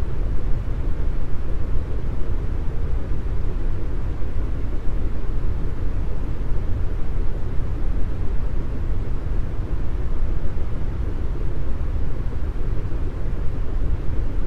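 Deep brown noise: a steady, even hiss weighted heavily to the low end, with little high treble.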